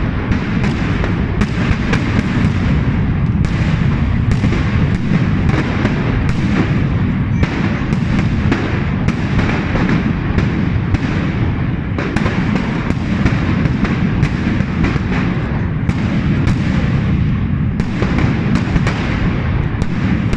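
A continuous barrage of firecrackers and fireworks: sharp cracks several times a second over an unbroken low rumble of further bangs.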